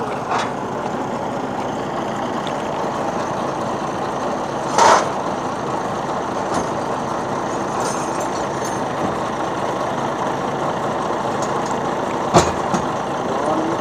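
An engine running steadily, with a short louder burst about five seconds in and a sharp knock near the end.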